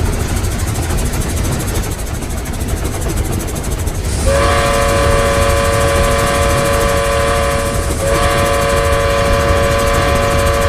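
Steam train whistle sounding two long blasts, several notes at once, the first starting about four seconds in and the second right after a brief break, over a steady low rumble of the running train.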